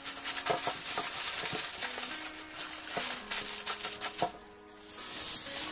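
Aluminium foil crinkling and rustling in irregular bursts as it is crumpled and pressed into a roasting pan, with a brief lull a little past four seconds in.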